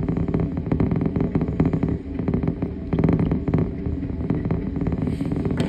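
Freight train of covered hopper cars rolling past: a steady rumble with rapid clattering of wheels on the rails. A sharp knock comes right at the end.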